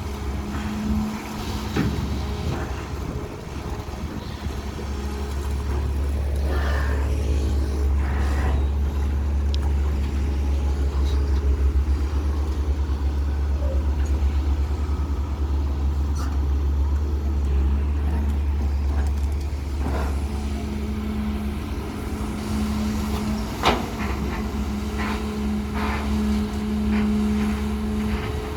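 Diesel engine of a CAT320 long-reach excavator running steadily while it digs, with a higher hum that comes and goes and a few short knocks, the sharpest near the end.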